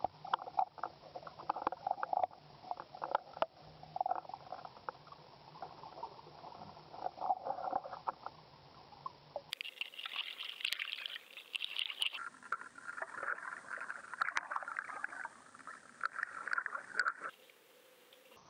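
Muffled underwater sound picked up by a camera being pulled through the water on a fishing line: sloshing and bubbling with many scattered clicks and taps. The sound changes abruptly a few times, about ten, twelve and seventeen seconds in.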